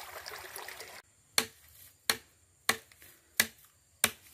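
Machete chopping into a green bamboo pole: five sharp strikes, about one every 0.7 seconds. A steady background hiss cuts off about a second in, just before the first strike.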